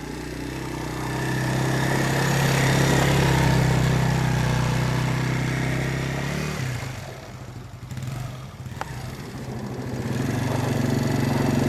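ATV engine revving under load, most likely to drive out of the mud where the small rider has just got stuck. The revs swell, fall away about two-thirds through, then build again near the end.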